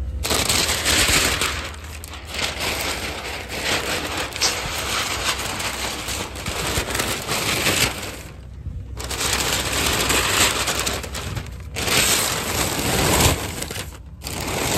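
Large sheet of bulletin-board paper being pulled down and crumpled: a long run of loud crackling and rustling, with a few brief pauses.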